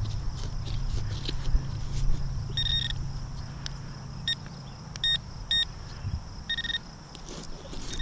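Garrett Pro-Pointer AT pinpointer giving short, steady-pitched beeps on and off, starting about two and a half seconds in, as it is probed toward a buried metal target; the beeps mark metal close to the probe tip. Scattered knocks and a low rumble of handling and digging in the first few seconds.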